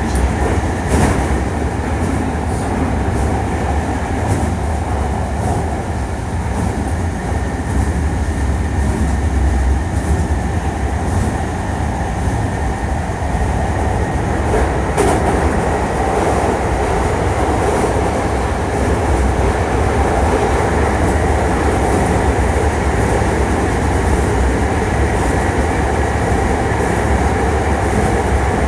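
Hankyu 1300 series electric train running at a steady speed, heard from inside the car: continuous rolling and wheel-on-rail noise with a faint steady high tone, and a few sharp clicks over rail joints, one about a second in and another about halfway through.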